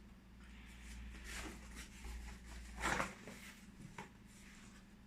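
Packaging of a Shure PG58 microphone box being opened and handled: a few brief rustles and scrapes, the loudest about three seconds in, and a small click near the end, over a faint steady hum.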